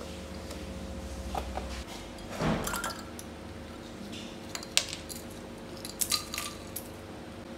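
Ice cubes dropped into a tall glass of milk, clinking sharply against the glass about three times in the second half, after a short noisy rustle about two and a half seconds in. A steady low hum runs underneath.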